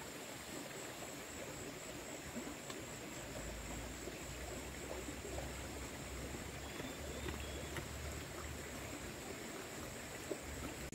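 Steady rush of flowing stream water, with a low rumble joining from about three and a half seconds in until near the end.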